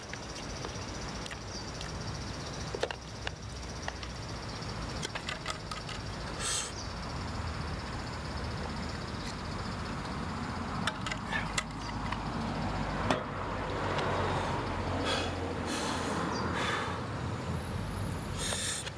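A person eating instant yakisoba noodles from a plastic container with chopsticks, with scattered small clicks and short bursts, and drinking from a metal bottle about halfway through, over a steady low outdoor rumble.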